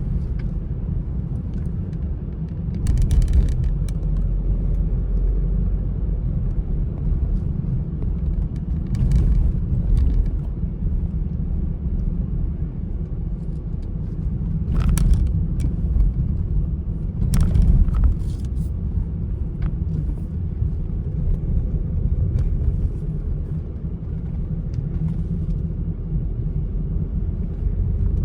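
Car driving along a road: a steady low rumble of road and engine, broken several times by short, sharp bumps.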